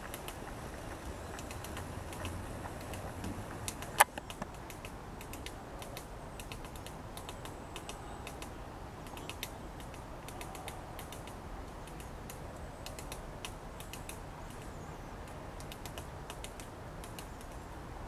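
Light, irregular tapping clicks from a downy woodpecker pecking at branch bark while foraging, with one sharper click about four seconds in.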